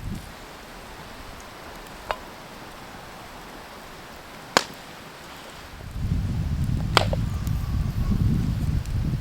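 Three sharp knocks about two and a half seconds apart, the middle and last the loudest. From about six seconds in, wind rumbles on the microphone.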